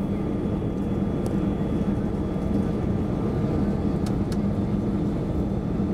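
Steady cabin noise of an Airbus A320-216 on final approach, heard at a window seat over the wing: its CFM56 engines and the airflow make an even low drone with a faint steady whine above it.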